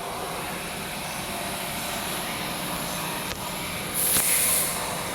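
Steady running noise of cable factory machinery. About four seconds in comes a short, loud, high hiss.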